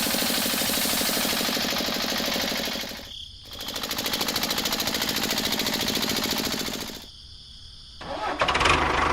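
Small engine of a homemade mini tractor running with a fast, even firing rhythm. It dips out briefly about three seconds in, cuts out for about a second near the end, then starts up again louder.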